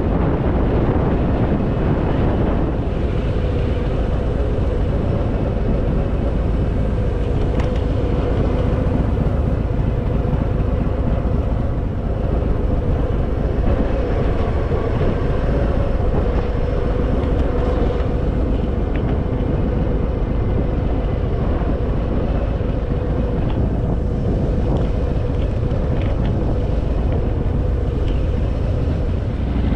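Harley-Davidson Fat Boy's V-twin engine running steadily at cruising speed, with wind rushing over the microphone.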